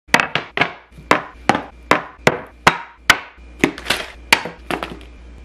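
A quick run of about fifteen sharp knocks at uneven spacing as a wooden cutting board, food cans and jars are set down one after another on a countertop.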